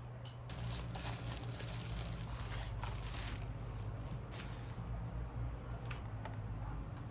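Rustling and crinkling of handled material, densest in the first three seconds, with a few light clicks, over a steady low hum.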